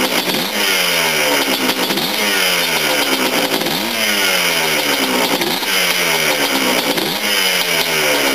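Freshly rebuilt Yamaha Blaster ATV's air-cooled single-cylinder two-stroke engine warming up on its first break-in heat cycle. The throttle is blipped about every second and a half, and the revs fall back each time, so the engine speed keeps varying rather than sitting at idle.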